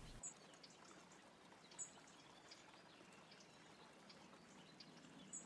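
Near silence: faint outdoor hiss with three brief, faint high chirps.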